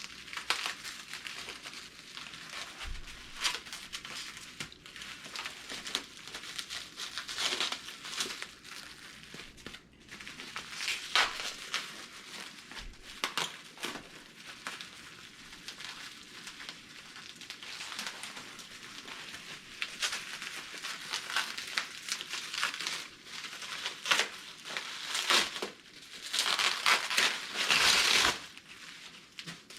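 Packaging being handled and unwrapped: irregular crinkling and rustling, with a louder stretch of crinkling near the end.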